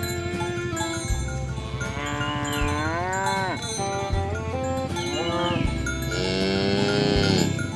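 Cows mooing: two long moos, the first about two seconds in and the second near the end, each bending and dropping in pitch as it ends, over background music.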